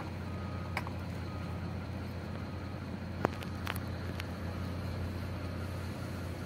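Steady low idle hum of a BharatBenz truck's diesel engine in the cab, with a short high electronic beep repeating about once a second through the first four seconds or so. A single sharp click about three seconds in.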